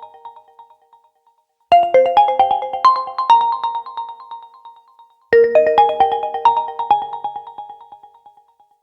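Oppo Reno 4 Lite phone ringtone playing: a short melody of quick, bright notes that rings out and fades, starting over about every three and a half seconds.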